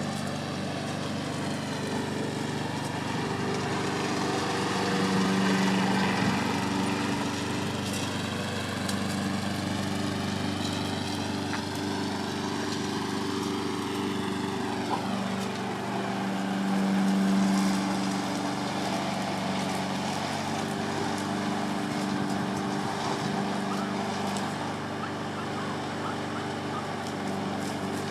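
Lawn mower engine running steadily, swelling louder twice as it comes close and moving off again in between.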